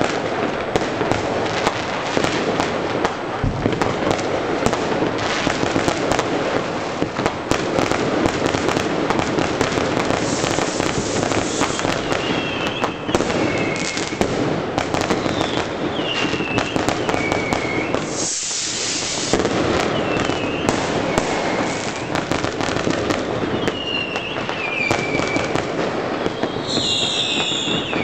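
A dense, continuous crackle of New Year's Eve fireworks and firecrackers going off all around, pop after pop. Over the second half come several short, falling whistles from whistling fireworks, and a brief bright hiss comes about eighteen seconds in.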